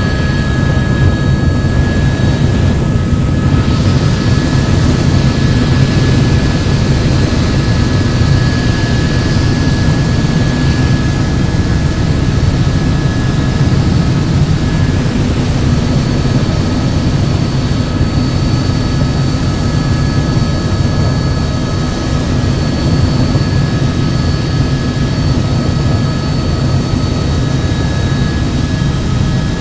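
Helicopter in steady flight: a loud, even drone of engine and rotor, with several thin high whining tones held steady above it.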